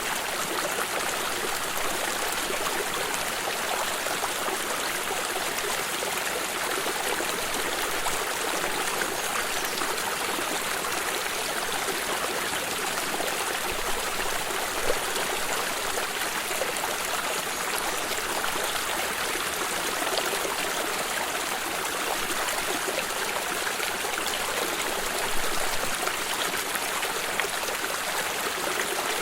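Small stream flowing and trickling steadily over stones, with occasional brief louder splashes.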